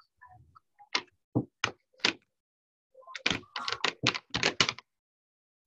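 A series of sharp knocks or taps: four spaced strikes, then a quick run of about eight more near the end.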